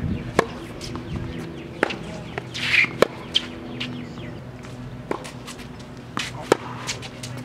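Tennis rally on an outdoor hard court: racquets striking the ball and the ball bouncing, a string of sharp pops and knocks roughly a second apart, over a steady low hum. A short higher squeak comes about two and a half seconds in.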